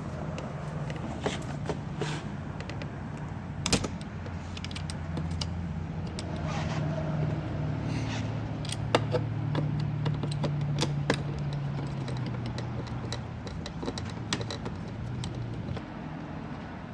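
Scattered sharp clicks and light taps from a screwdriver and plastic trim caps as the screws holding a car door panel are taken out. Under them runs a low engine hum from a vehicle, which grows louder in the middle and fades near the end.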